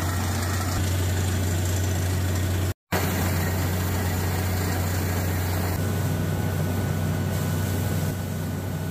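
Water-well drilling rig running steadily: an engine drone under the rush of water and cuttings being blown out of the new borehole. The sound drops out briefly about three seconds in.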